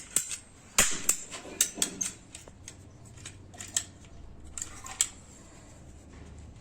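A plastic pipe coupling being cut lengthwise: a few sharp, irregular snips and clicks, most in the first two seconds and one more about five seconds in.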